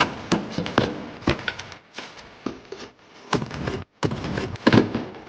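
Irregular sharp knocks, clicks and clatter of hand tools and metal or plastic parts as a car's exterior trim and panels are taken off. The sound cuts out briefly about three-quarters of the way through.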